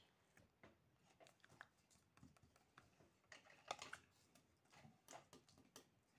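Faint scattered clicks and crinkles of fingers handling paper and clear plastic tape, with a sharper tap a little before four seconds in.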